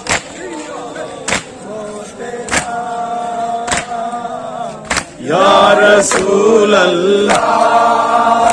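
A crowd of men chanting a mourning chant together, with a sharp unison slap of hands on chests (matam) about every 1.2 seconds. The chanting grows much louder about five seconds in.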